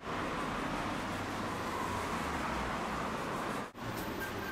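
Steady street-traffic and vehicle running noise with a low rumble. It drops out briefly about three-quarters of the way through, then resumes.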